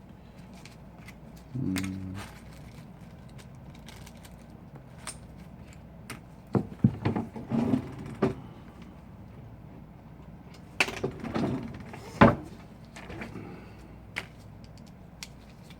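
Scattered small clicks and taps of repair tools and tiny phone parts being handled, in two clusters about six and eleven seconds in, with a single click near the end, over a steady low hum.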